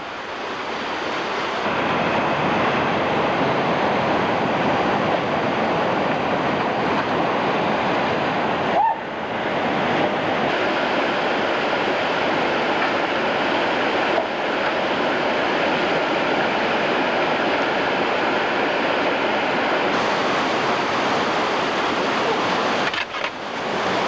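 Rushing whitewater of a steep, rocky mountain river running in heavy rapids: a steady, loud rush. It builds over the first couple of seconds and drops briefly twice, about a third of the way in and near the end.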